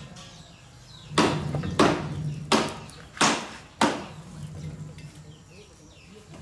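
Five sharp slaps about two-thirds of a second apart: a hand striking the rubber tyre of a rickshaw truck's rear wheel. A low steady hum runs underneath.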